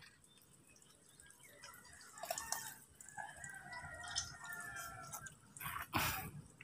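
Faint wet squelches, drips and small knocks of soft mangrove mud being cut and scooped with a bolo knife, starting after a second or so of near silence. A sharper knock comes about six seconds in, and a faint drawn-out call sounds in the background in the middle.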